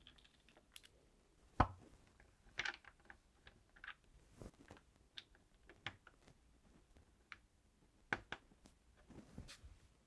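Faint, scattered clicks and taps of small plastic parts being worked on a fridge freezer door: the door bush and cap are prised out with a screwdriver and pushed into their holes. The sharpest clicks come about a second and a half in and again near eight seconds.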